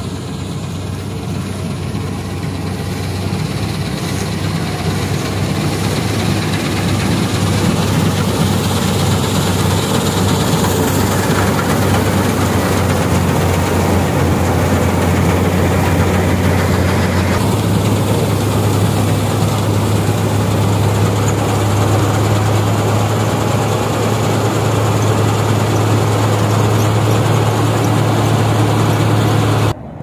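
Combine harvester cutting wheat: a steady low engine drone under a dense mechanical rush from the cutting and threshing gear. It grows louder over the first several seconds, holds steady, and stops suddenly near the end.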